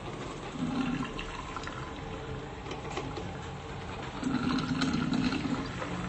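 Cornell drip coffee maker brewing, water gurgling and sputtering through it. There are two louder gurgles, a short one about half a second in and a longer one about four seconds in.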